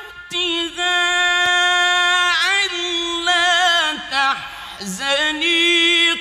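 A man reciting the Quran in the melodic mujawwad (tajwid) style, drawing out long held notes with ornamented turns in pitch. There is a short break for breath about four seconds in before the next long note.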